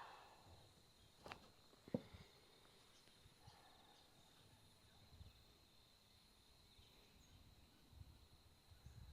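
Near silence: quiet room tone with a faint steady high whine, broken by two short clicks, a soft one about a second in and a sharper, louder one about two seconds in.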